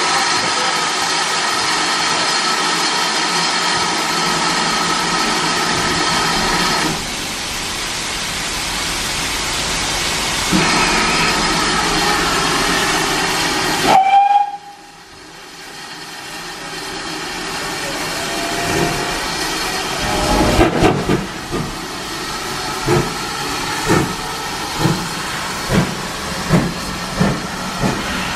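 GWR 5600 class 0-6-2T tank locomotive No. 6695 hissing steam while it stands, with a short whistle about halfway through. From about two-thirds of the way in it starts away, its exhaust beating about once a second and slowly quickening.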